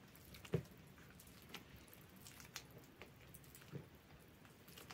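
Faint, soft squishing of a hand working a wet mix of milk, oil and eggs into flour in an enamel bowl, with a few quiet ticks, the clearest about half a second in.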